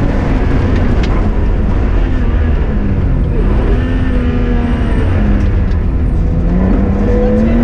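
BMW 325i E30's 2.5-litre straight-six running hard at rally pace. Its note falls and climbs back twice as the revs drop and build again, over a heavy low rumble.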